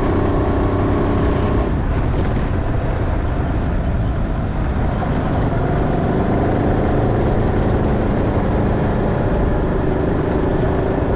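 Motorcycle engine running under way, over a steady rush of wind and road noise. The engine note falls away about one and a half seconds in and builds back up from about five seconds in.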